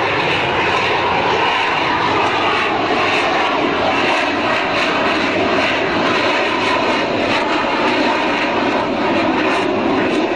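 Jet engines of an F/A-18 Hornet-type fighter flying a display pass: a loud, steady rush of jet noise that holds without a break.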